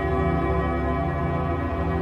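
Ambient music: a sustained, droning chord of many steady tones at an even level.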